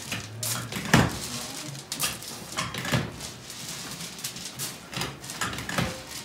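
A heavy mass of hard candy being worked by hand, giving irregular soft thuds and slaps about once a second, the loudest about a second in.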